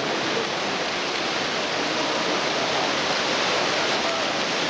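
Steady wash of splashing from swimmers racing backstroke, mixed with crowd noise from the stands, in an indoor pool hall.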